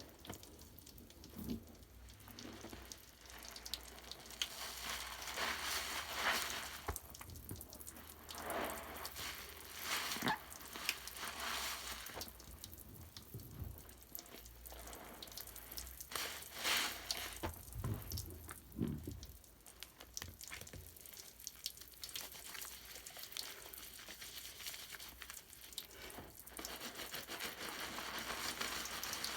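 Wet bubble bath foam being squeezed and worked by hand, fizzing and crackling as bubbles pop, in irregular swells with a few louder squishes.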